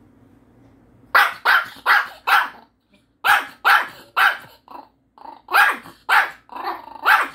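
Small white Pomeranian barking at the owner, about a dozen short, sharp, high barks in quick runs of three or four, starting about a second in. The barking is demand barking for a piece of Korean melon being held back from it.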